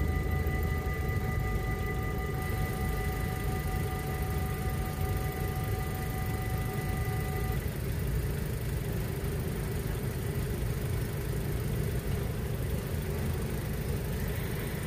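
Electric bells of a Dutch half-barrier (AHOB) level crossing ringing as a steady high tone, which cuts off about seven and a half seconds in as the crossing clears after the train. Underneath is the low rumble of idling car engines waiting at the barriers, and near the end one engine rises in pitch as it pulls away.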